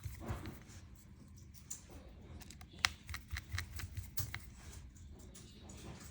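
Faint, scattered small clicks and taps of tiny phone screws and a precision screwdriver being handled and driven into the plastic frame of a Xiaomi Redmi phone, the sharpest click about three seconds in.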